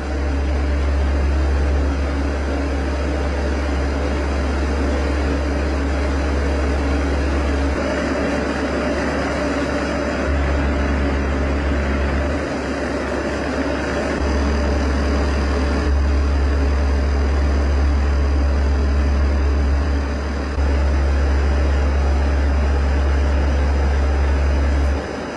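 Electromagnetic sound installation of analog tone generators and vibrating electromagnet kits: a loud, steady low hum under a hissing wash of noise. The hum steps up and down in level every few seconds.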